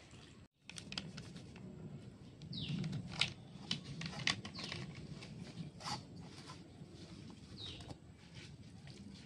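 Hands rubbing and kneading a crumbly mixture of powdered milk, ghee and water in a steel plate: soft rustling with light clicks and taps. A bird calls in the background a few times with short falling whistles.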